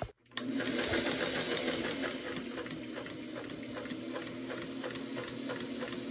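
Electric domestic sewing machine stitching steadily through fabric backed with stiff buckram, the needle beating out an even rhythm as the cuff is sewn along a curved line. It starts up just after a momentary silence at the very beginning.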